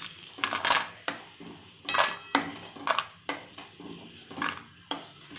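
A wooden spatula scrapes and knocks against a stainless-steel kadai as fried cashew pieces are scooped out of the hot ghee. The clatters come at an irregular pace, about a dozen in all.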